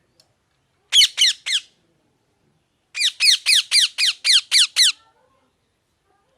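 Ringneck parrot squawking: three quick shrill calls, then after a short pause a run of about eight more, each sliding down in pitch.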